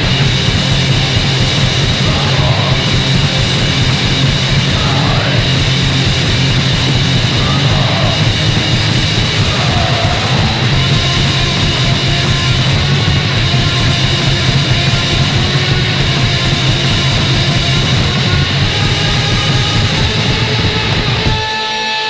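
Loud, distorted punk rock band playing at full tilt: electric guitars, bass and drums from a demo recording. Near the end the drums and bass stop, leaving a guitar chord ringing.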